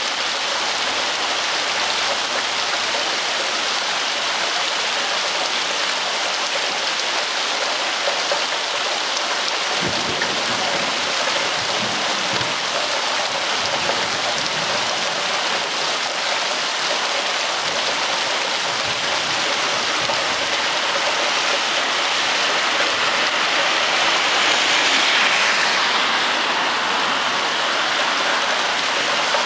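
Heavy rain falling steadily, a dense even hiss, with a few low thuds partway through and a brief swell near the end.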